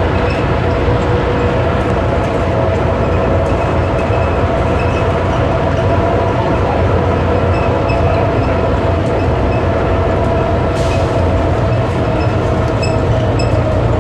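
Rubber-tyred automated airport people-mover train running steadily through a tunnel, heard from inside the car: a constant rumble with a steady motor hum. A brief hiss comes about eleven seconds in.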